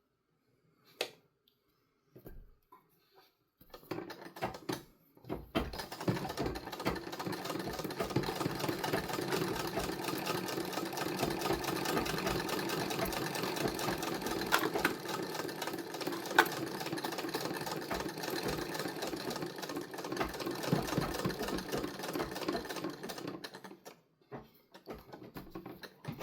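A 125-year-old treadle sewing machine stitching: a few light clicks as it is set up, then about four seconds in a rapid, steady mechanical clatter that runs for some twenty seconds and stops near the end.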